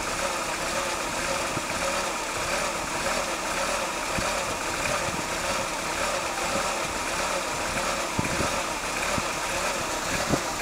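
A Ford Focus running with a steady, even mechanical noise that does not change in pitch, with a few faint knocks in the second half.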